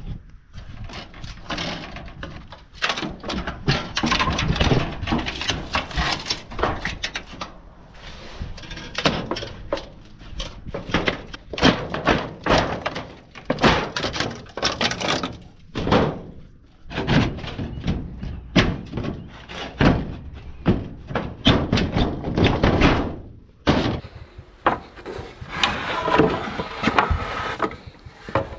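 Tin snips cutting and bending rusty corrugated metal roofing: a long run of sharp, irregular clicks and knocks as the sheet metal is cut and worked.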